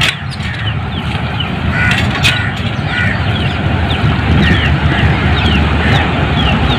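Hand pump being worked, squeaking with short falling squeaks a couple of times a second, over a steady low rush of water running into a metal pot.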